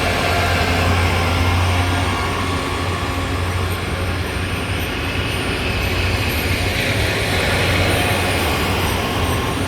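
DPKr3 diesel multiple unit running on the rails: a steady low engine rumble under a continuous wash of wheel and rail noise.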